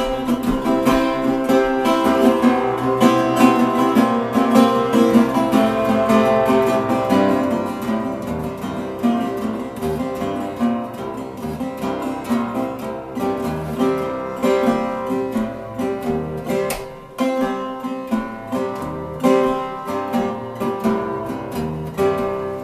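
Metal-bodied resonator guitar played solo in a fast, steady strummed and picked rhythm, with no singing.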